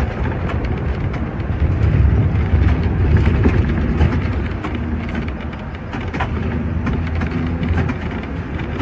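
Hong Kong sixth-generation teak-bodied double-decker tram running on its rails, heard from inside at the rear: a steady low rumble with frequent clicks and rattles from the wheels and the body.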